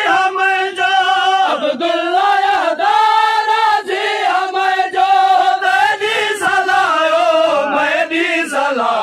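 Group of men chanting a Shia noha (mourning lament) in unison, with long held, wavering notes, over a steady beat of open-hand slaps on the chest (matam).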